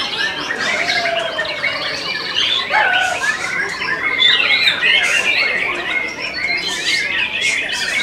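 White-rumped shamas singing, a dense, unbroken mix of overlapping loud whistles, pitch glides, rapid chirps and trills.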